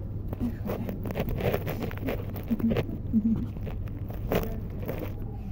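A cat eating poured cat food close to the microphone, an irregular run of small crunching clicks, over a steady low rumble.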